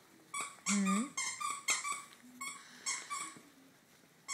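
Greater Swiss Mountain Dog chewing and mouthing a plush cow toy: a quick series of short, sharp sounds at the same pitch, with a brief low rising sound from the dog about a second in.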